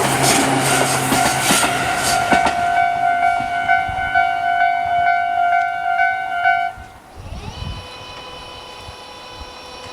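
Tobu 10030 series train running over a level crossing, its wheels clacking over the rail joints for the first couple of seconds, with the crossing's electronic warning bell ringing in a steady, regular pulse. The bell stops about two-thirds of the way in, and a fainter warning bell of a different pitch carries on.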